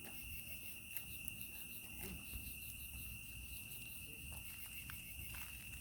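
Insects chirring steadily at one high pitch, with a few faint scattered taps.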